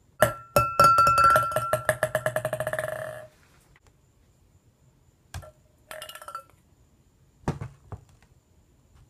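Ping pong ball bouncing in a drinking glass, the bounces coming faster and fainter until it settles after about three seconds, each tap making the glass ring. Later come a couple of light knocks and a short clink of the glass.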